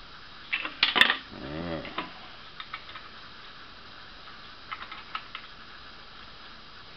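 Small metal clicks and clinks of a steel nut and washer being handled and started by hand on threaded rod. A cluster of louder clicks comes about a second in, then scattered light ticks.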